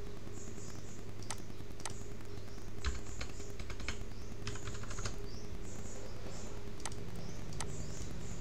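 Computer keyboard typing: scattered key clicks and a few quick runs of them, over a steady low hum.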